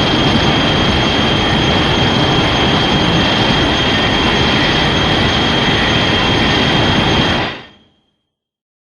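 A loud, steady rushing noise with a thin high whine over it, fading out about eight seconds in: a Shin Godzilla fourth-form monster sound effect.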